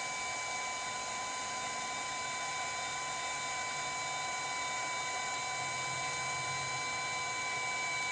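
Steady fan whir from a running BGA rework station, an even rushing noise with a constant thin high whine over it.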